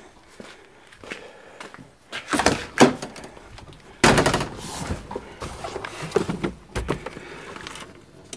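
Getting into the cab of a 1984 Nissan pickup: scattered handling clicks and two knocks, then the truck door shutting with a loud thump about four seconds in, followed by smaller clunks in the cab. The engine is not yet running.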